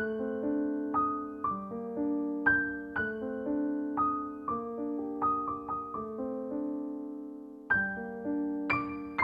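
Background piano music: single notes and chords struck about once or twice a second and left to ring out, with a short pause before the last second and a half.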